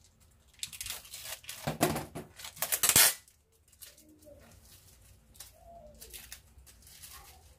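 Plastic packaging rustling and crinkling as a yoga mat is unwrapped and handled, for about two and a half seconds and loudest near its end, then only faint small handling sounds.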